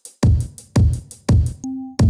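Electronic music: after a brief silent gap, three deep drum-machine bass hits about half a second apart, each dying away, then a short held synth note near the end.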